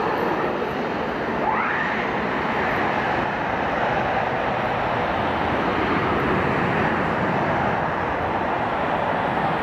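Boeing 747-8I's four GEnx-2B jet engines running as the airliner rolls out along the runway after landing: a steady rushing jet noise, with a brief rising whine about a second and a half in.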